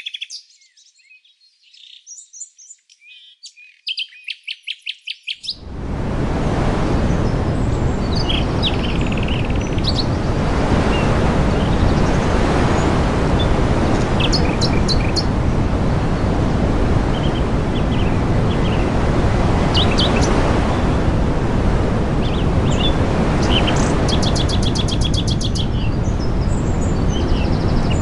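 Small songbirds chirping in quick, high trills. About five seconds in, a loud, steady rushing noise starts suddenly and covers the rest, with the chirps and trills still coming through over it.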